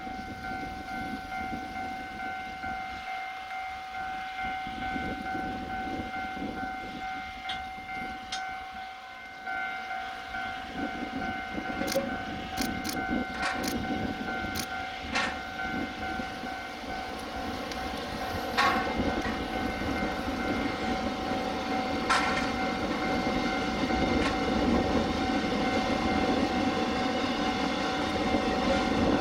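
Railway level-crossing warning signal sounding steadily, starting at the beginning, while an approaching train's rumble builds and grows louder through the second half, with a few sharp clicks.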